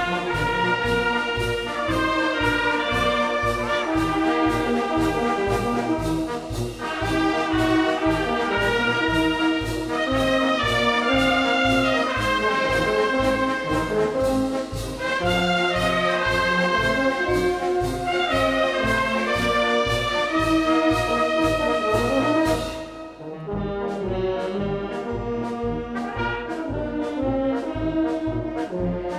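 Maltese band-club wind band playing a brijuż march, with the brass carrying the tune over a steady march beat from the percussion. About 23 seconds in, the high percussion stops and the band drops to a softer passage.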